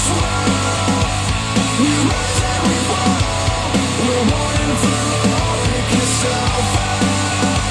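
Rock music played back through a pair of Polk Audio TSi 200 bookshelf speakers driven by an IOTAVX SA3 integrated amplifier, with a steady beat.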